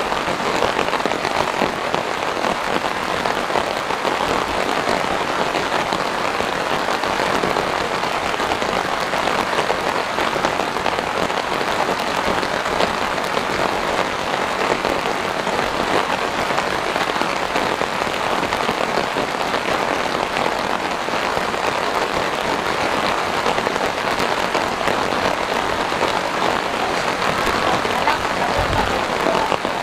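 Steady, dense rain falling and pattering on plants and ground.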